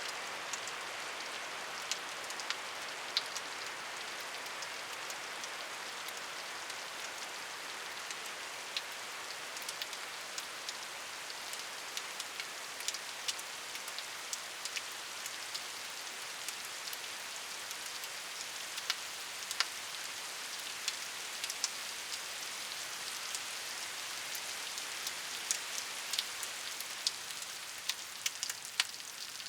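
Steady rainfall, a continuous hiss of rain with many separate drops ticking sharply on a surface throughout.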